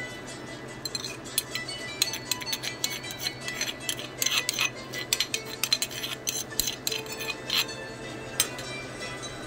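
Irregular clicks and light taps of a stone mortar being knocked and scraped as crushed peanuts are tipped out of it into a pot. The taps begin about a second in and die away a second before the end, over soft background music.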